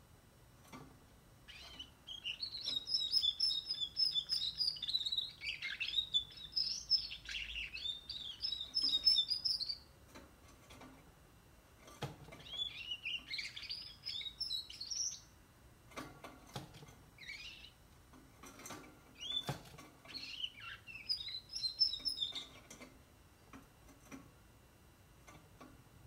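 Juvenile Russian canary, 44 days old, singing its early warbling song: a long run of quick twittering phrases, then several shorter bouts with pauses between. A few short clicks fall in the gaps.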